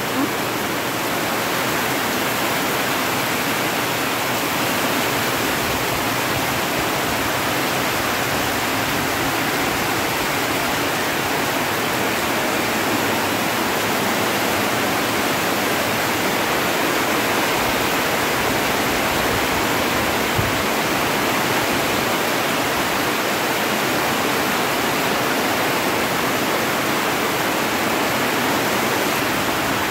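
Heavy rain pouring down steadily, a dense, even hiss without let-up.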